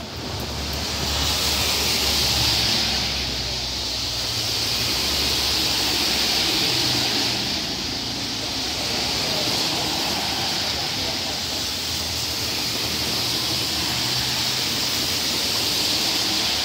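Cars passing on a rain-soaked road, their tyres hissing on the wet surface, swelling and fading as each car goes by over a low engine rumble, with steady rain.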